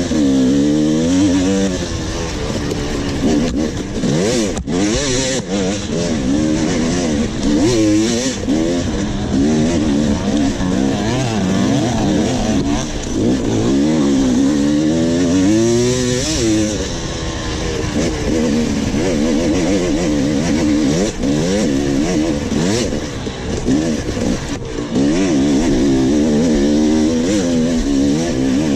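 Dirt bike engine heard from onboard, revving up and falling back over and over as the rider works the throttle and shifts, with a few sharp knocks.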